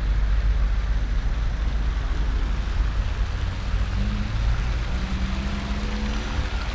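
Outdoor street ambience: a low wind rumble on the microphone over traffic, with a vehicle engine's hum coming in about four seconds in.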